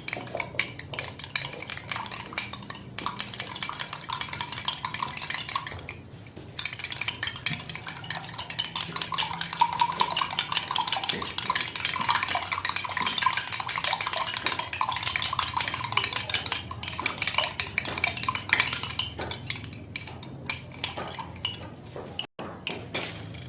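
Lemon juice and soy sauce being stirred in a glass: rapid, continuous clinking against the glass, with a short pause about six seconds in.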